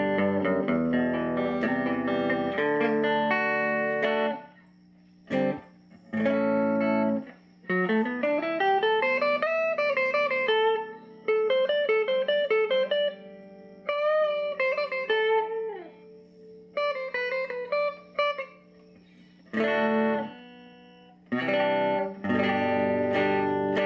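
Electric guitar, a 1965 Fender Musicmaster with a single-coil pickup, played clean through a 1951 Gibson BR-6 tube amplifier on old, dead strings: chords, then single-note runs with slides and bends, broken by short pauses.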